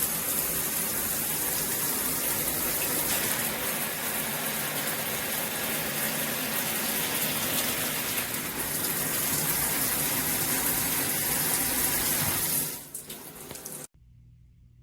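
Shower head spraying water, a steady hissing rush that stops near the end.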